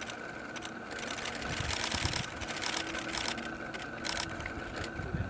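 Camera shutters firing, in rapid bursts from about one to three and a half seconds in and as single clicks before and after. Low wind rumble on the microphone now and then.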